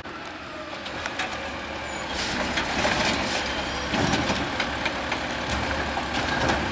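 Automated side-loader garbage truck pulling up with its diesel engine running and a hiss of air brakes. After that its hydraulic arm grabs and lifts a recycling bin, with clanks and clicks.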